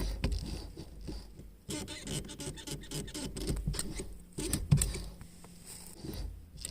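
Brake pedal of a 2013 Nissan Leaf pressed and released over and over: irregular clicks, light knocks and rubbing from the pedal and its brake-light limit switches. The switches have been freshly greased, and the pedal no longer squeaks.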